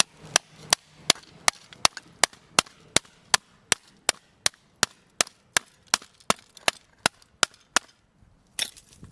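Sharp, evenly spaced knocks on a watt-hour meter being taken apart, about three a second, about twenty in a row, with a short pause before one last knock near the end.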